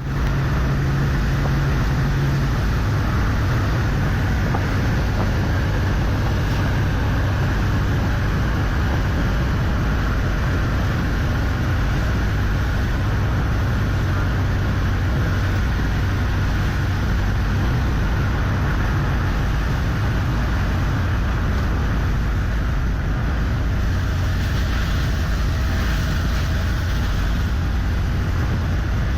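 Steady road-vehicle travel noise: a low engine drone with tyre and wind rush, holding even throughout. The low hum drops a little in pitch about two and a half seconds in.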